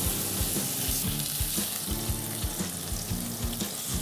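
Thick beef entrecôte sizzling steadily as it sears in a hot frying pan with a drop of olive oil, over background music with a steady beat.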